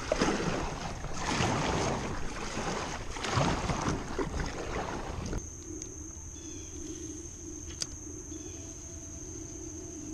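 Kayak paddle strokes splashing through the river water in three or four surges. About five seconds in, the sound drops to a quieter bed with a steady high-pitched buzz and a few faint chirps.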